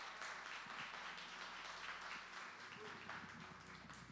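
Small seated audience applauding steadily.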